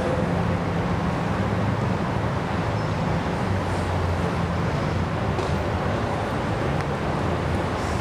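Steady hum of city traffic heard from high above the streets, with a low rumble under it.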